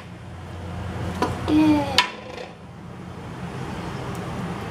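A chef's knife cutting through watermelon and knocking against a wooden cutting board, two sharp knocks about a second apart.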